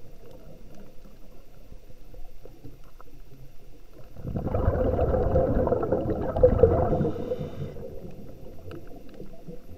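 Scuba diver's exhaled bubbles from the regulator, heard underwater through the camera housing: a loud bubbling rush starting about four seconds in and lasting about three and a half seconds, over a faint background of small crackling clicks.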